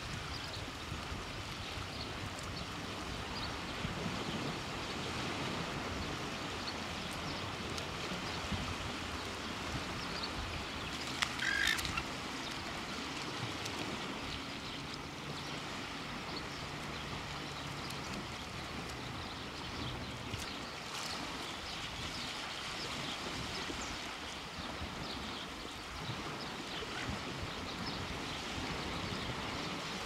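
Steady ambience of shallow tidal water and wind, with a single short bird call a little over 11 seconds in.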